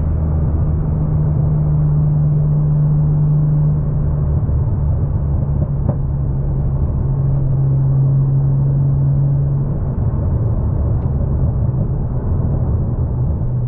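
Nissan Skyline R34 GT-R's RB26DETT straight-six running at a steady cruise, an even low drone that drops slightly in pitch about four seconds in and again near ten seconds.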